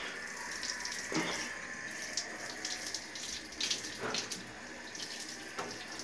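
Handheld shower head running, water spraying and splattering onto a tiled shower floor. Three brief louder splashes stand out, about one, four and five and a half seconds in.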